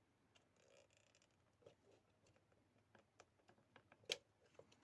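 Near silence with a few faint, scattered clicks of small objects being handled, and one sharper click about four seconds in.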